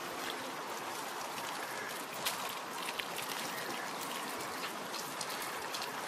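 Outdoor ambience: a steady rustling hiss with scattered sharp clicks and snaps.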